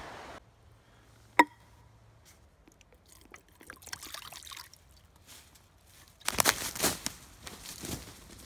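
A single metallic clink about a second in, then water poured from a plastic jug into a small metal pot, the stream lasting under two seconds. Near the end come footsteps crunching through dry leaf litter.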